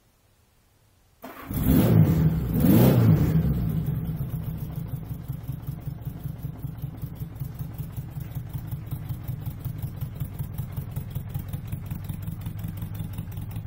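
1978 Honda Gold Wing GL1000's flat-four engine starting about a second in, with two quick bursts of revs, then settling into a steady idle.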